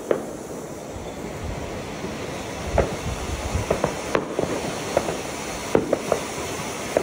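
Zink No. 7 Schweizer Supervulkan Gold 250 g fountain firework hissing steadily as it sprays gold sparks, with scattered sharp cracks and pops of fireworks going off through it.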